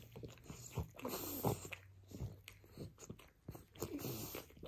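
French bulldog gnawing and mouthing a rubber chew bone, giving irregular wet chomps and mouth clicks.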